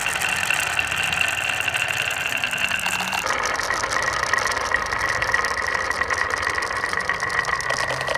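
Many glass marbles rolling down wooden wavy-slope marble-run tracks: a steady rolling rumble with constant clicking as the marbles knock together and against the wood. The sound changes abruptly about three seconds in as the picture cuts to another stretch of track.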